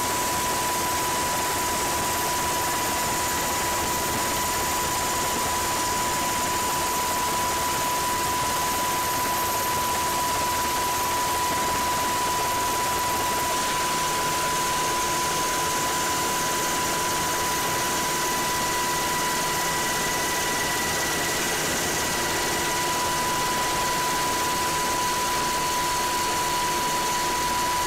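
Steady engine noise: an even roar with a constant high-pitched whine over it, unchanging in pitch and level.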